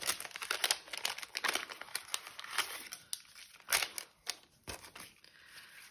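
Clear cellophane packaging crinkling and crackling as it is torn open and pulled off a stack of die-cut paper pieces. The crinkling is dense for the first few seconds, then thins to a few scattered crackles and light clicks.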